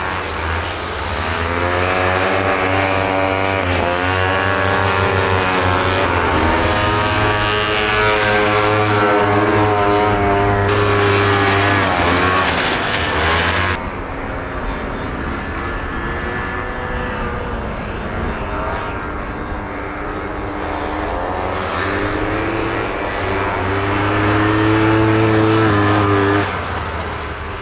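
Vintage two-stroke racing snowmobile engines running hard on an ice course, their pitch rising and falling as the sleds accelerate and back off through the turns. Near the end one sled passes close, louder and climbing in pitch, and the sound cuts off suddenly.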